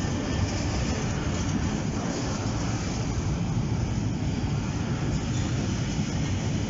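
A freight train of empty red stake wagons rolling past, with a steady noise of steel wheels on the rails that is strongest in the low end.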